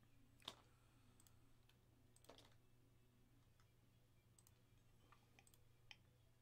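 Near silence with a few faint, scattered computer mouse clicks, the sharpest about half a second in.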